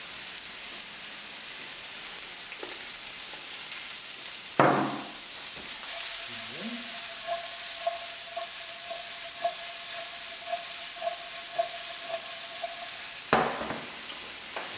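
Diced courgettes sizzling in olive oil in a hot frying pan as they are stirred with a wooden spoon and tossed, with a steady high sizzle. Two knocks come about four and a half seconds in and near the end. In the middle a faint ringing pulses about twice a second while the pan is shaken on the hob.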